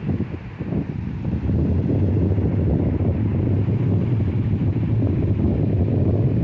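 Sea surf with wind buffeting the microphone: a low, rumbling wash that swells about a second and a half in and then holds steady.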